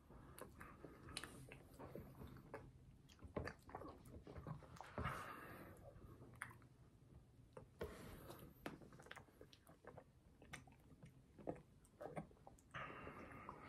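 Quiet close-up eating sounds: soft chewing and lip smacks from spoonfuls of an M&M's McFlurry, with scattered small clicks of the plastic spoon against the cup.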